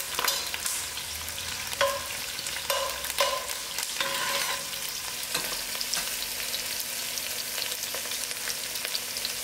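Chopped onions, whole spices, thyme and ginger-garlic sizzling in hot oil in a pot while a spoon stirs and scrapes the pot several times in the first four seconds, after which the steady sizzling carries on with only occasional scrapes.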